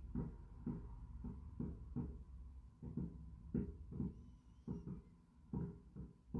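Distant fireworks going off in a rapid, irregular barrage: muffled bangs about two or three a second over a low steady rumble.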